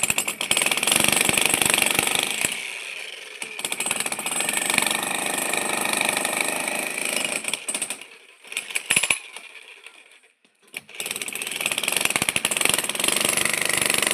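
A 16 kg electric breaker hammer pounding concrete in a fast, continuous hammering. It stops about eight seconds in, gives one short burst, then starts hammering again about three seconds later.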